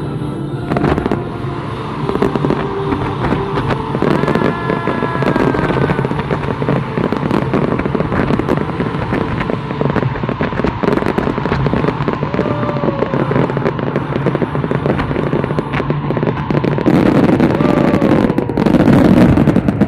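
Fireworks going off in a dense, rapid barrage of bangs and crackles, loudest in the last few seconds as the display builds to its finale.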